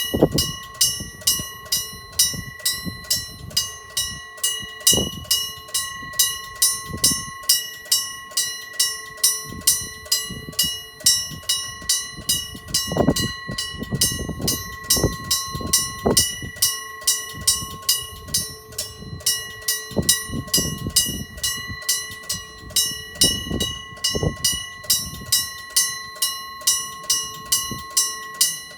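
Japanese level-crossing warning bell ringing steadily at about two strikes a second. Underneath it, a train passes over the crossing with low knocking from its wheels.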